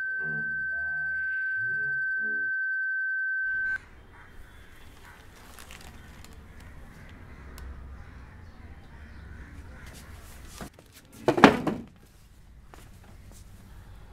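A steady high-pitched ringing tone over muffled voices, which cuts off abruptly about four seconds in, leaving quiet room tone. About eleven seconds in comes one loud, short, harsh call.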